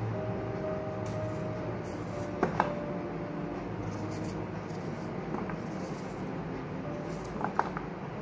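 Knife slicing raw potato held in the hand, with a few light clicks as cut potato sticks and the knife touch a steel plate, about two and a half, five and a half and seven and a half seconds in, over a steady background hum.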